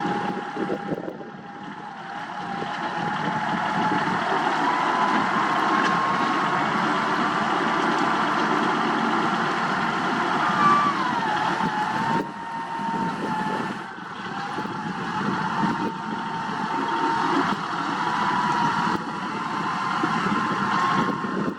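Diesel engine of a heavy earthmoving machine running steadily, with a whine that drifts slowly up and down in pitch and dips briefly about halfway through.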